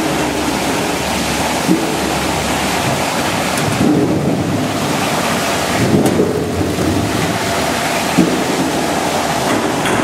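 Apple washing machine churning its water as apples tumble through it: a steady rushing noise, with a couple of brief knocks.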